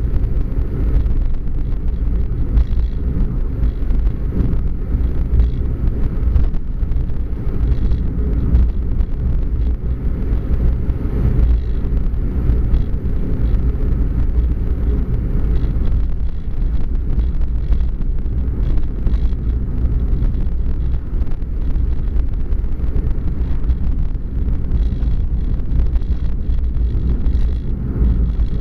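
Car driving along a narrow road: a steady low rumble of engine and tyre noise, easing slightly about halfway through.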